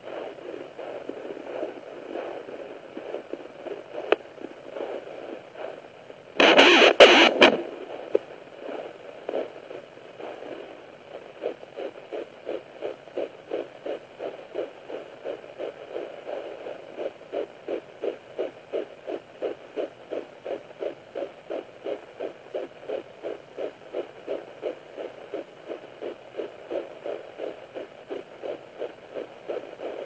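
Sonoline B handheld fetal Doppler's speaker giving a hissing, swishing signal with a loud scratchy burst about six seconds in. From about eleven seconds it settles into the fast, even, galloping beat of a 9-week fetus's heart, at around 160 to 165 beats a minute.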